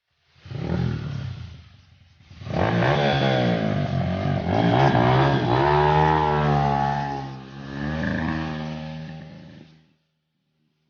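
Dirt bike engine revving, its pitch rising and falling over and over: a short rev about half a second in, then sustained revving with repeated throttle changes, cutting off suddenly near the end.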